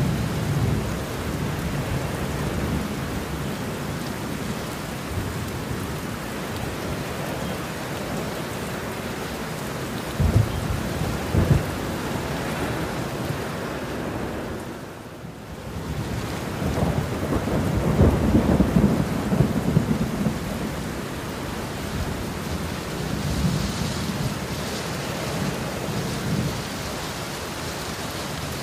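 Heavy rain falling steadily, with rolling thunder: two sharp claps about ten seconds in, then the loudest long rumble a little past the middle and a weaker one near the end. The rain briefly drops away just before that big rumble.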